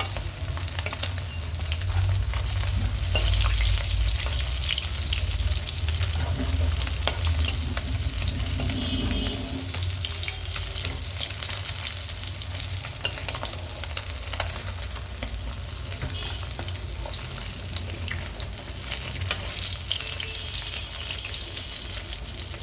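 Fish frying in hot oil in a pan: a steady sizzle with many small crackling pops of spattering oil.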